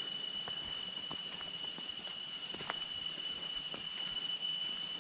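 Insects droning steadily in the surrounding vegetation, a continuous high-pitched buzz with an even higher tone above it, unbroken throughout, with a few faint clicks.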